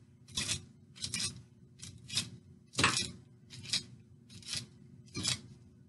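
Kitchen knife chopping raw walnuts on a cutting board, about eight sharp chops at a steady pace.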